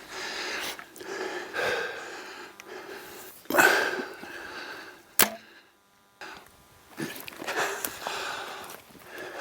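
A bow shot at a mule deer: a sudden loud release about three and a half seconds in, amid a hunter's close, heavy breathing, with a sharp click a little later.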